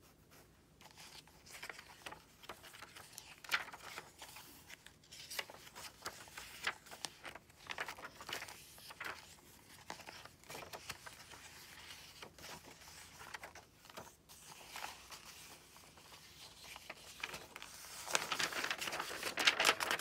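Paper pages of a handmade junk journal being turned and handled: soft, scattered rustles and crackles of stiff paper, with a denser, louder run of rustling near the end as kraft-paper pages are flipped.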